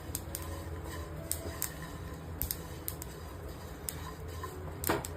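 Sesame seeds and peanuts dry-roasting in a pan, giving off scattered, irregular small pops and crackles over a steady low hum.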